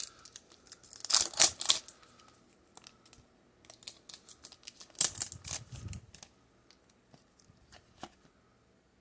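Foil Pokémon booster pack wrapper being torn open by hand, with crinkling of the foil. The loudest tearing comes about a second in, followed by softer scattered crinkles around the middle.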